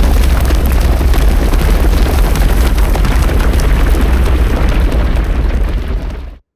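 Cartoon sound effect of a herd of Einiosaurus stampeding: a loud, steady, deep rumble that fades a little before the end and then cuts off.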